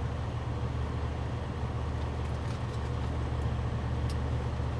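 Steady low rumble of a semi truck's idling diesel engine, heard from inside the cab, with a few faint clicks.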